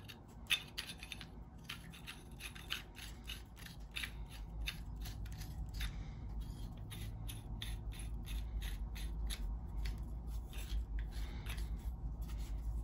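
The threaded ends of a ratcheting pipe threader's two-piece metal handle being screwed together by hand: a running string of light scraping clicks, several a second, from the threads and hands turning the tube, growing a little louder after the first few seconds.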